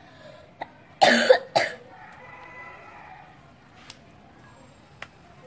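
A boy coughs twice in quick succession about a second in, while eating.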